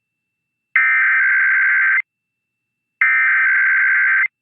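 Emergency Alert System SAME header: two bursts of shrill, buzzy digital data tones, each about a second and a quarter long, with about a second's gap between them. This is the end of the three-times-repeated coded header that opens an alert, here a required weekly test.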